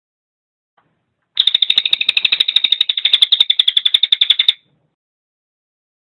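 Crested jay (cililin) giving a rapid rattling call, a fast even series of about a dozen clicks a second that starts a little over a second in, lasts about three seconds and stops abruptly.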